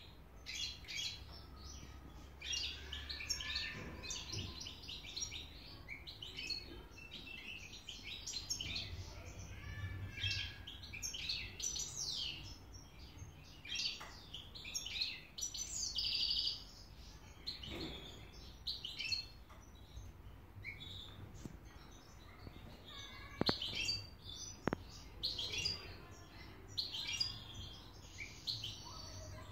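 European goldfinch singing in its cage: long runs of fast twittering and chirping notes with short pauses, and two sharp clicks about a second apart in the later part.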